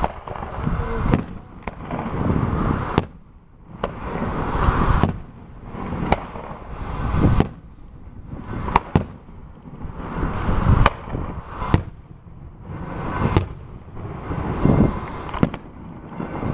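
Fireworks going off: sharp bangs every second or two, with a rumble between them.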